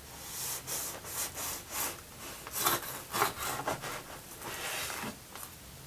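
A knife sawing through a freshly baked sweet yeast loaf in a run of uneven back-and-forth strokes, about two a second.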